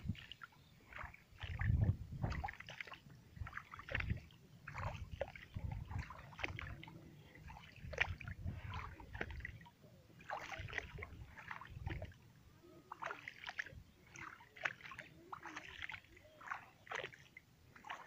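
Shallow water sloshing and splashing in irregular short bursts, over a low rumble.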